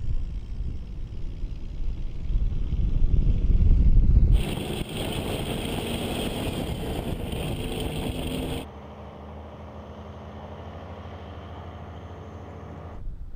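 Tractor-trailer driving at speed. A deep engine and road rumble builds over the first four seconds. It switches abruptly to a loud rush of wind and tyre noise for about four seconds, then drops to a quieter, steady engine drone.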